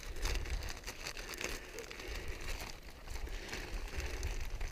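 Crinkly rustling of the summit register's cache and its wrapping being handled and opened: irregular crackles, with a low rumble underneath.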